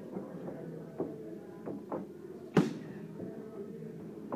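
Boxing gloves smacking into focus mitts during pad work: a few sharp slaps at uneven intervals, the loudest a little past halfway.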